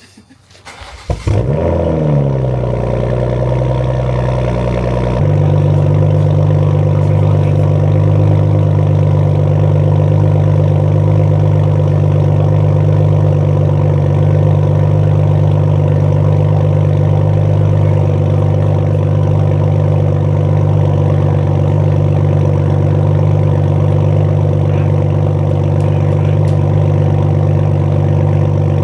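2020 Toyota Supra engine starting through a Tomei titanium dual cat-back exhaust about a second in. The revs flare and wander, then drop into a steady idle about five seconds in, where the engine keeps idling.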